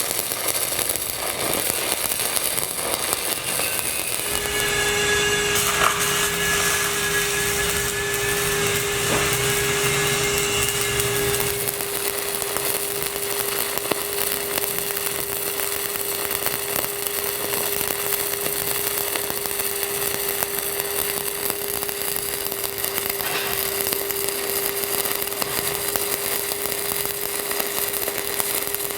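Stick-welding arc crackling steadily as a cap pass is run with 8010 cellulose electrodes on steel pipe. A steady hum joins it about four seconds in.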